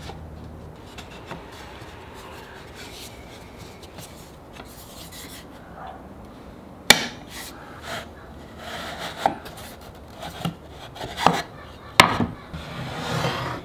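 Wooden frame pieces and metal bar clamps being handled on a workbench: scattered knocks and clicks of wood and metal, with two sharp clacks about 7 and 12 seconds in. Wood slides and rubs over the bench near the end.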